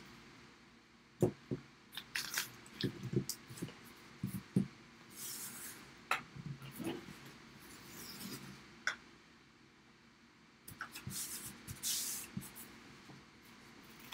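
Blue painter's tape being unrolled from its roll in short rasping pulls and pressed down by hand onto a wooden board, with scattered light taps and knocks of handling.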